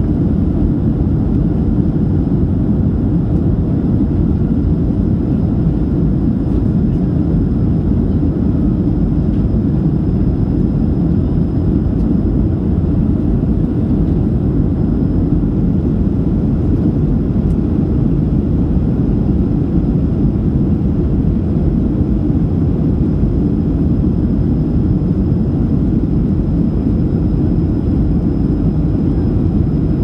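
Steady low rushing drone of a jet airliner's cabin in flight: engine and airflow noise heard from a window seat, unbroken throughout, with a faint steady high whine above it.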